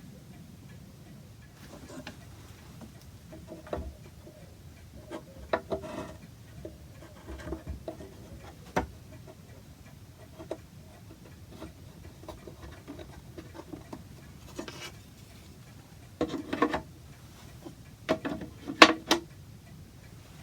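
Antique cuckoo clock ticking, with irregular clicks and knocks; the loudest come in two clusters near the end.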